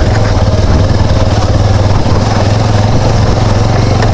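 Motorcycle engine running steadily at low revs, with no revving up or down.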